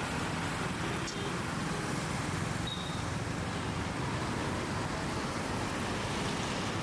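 Steady city road traffic: a continuous hum of cars and other vehicles going by, with a faint short high tone a little before the middle.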